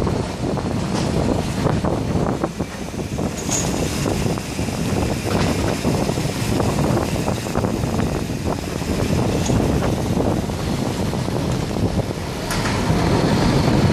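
Wind rushing over a bicycle-mounted camera's microphone while riding in city traffic, with road and vehicle noise underneath and a few brief clicks.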